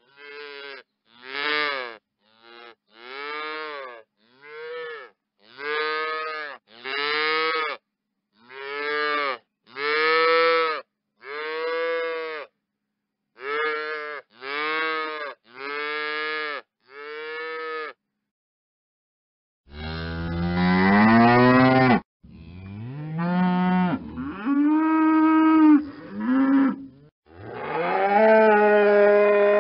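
Cattle mooing in a series of separate calls cut apart by dead silence. For the first two-thirds there is a quick run of about sixteen short, higher calls, each rising and falling in pitch. After a pause come four or five longer, louder, deeper moos that rise in pitch.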